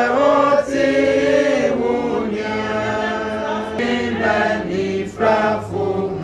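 A choir singing together in long held notes, chant-like, the pitch moving from note to note every second or so.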